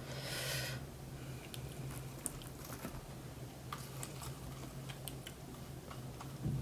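Quiet room with a low steady hum and faint, scattered small clicks and taps. A brief soft hiss comes in the first second.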